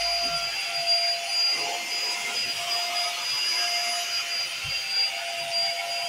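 Corded stick vacuum cleaner running steadily on a carpet: a constant rush of air with a high-pitched whine from the motor.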